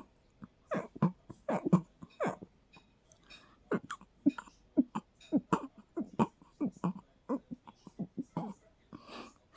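A person's stifled sneezes in a rapid fit: many short, held-in bursts, about two a second, with a few sharp breaths in between.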